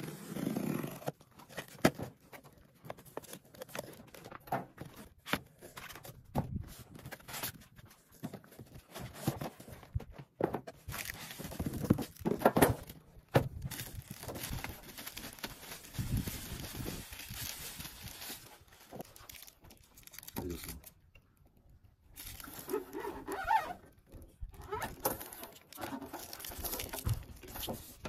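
Unpacking noises: packing tape slit and torn on a cardboard box, then a clear plastic bag crinkling as a small machine is unwrapped. Scattered sharp knocks and clicks of things handled and set on a steel table run through it.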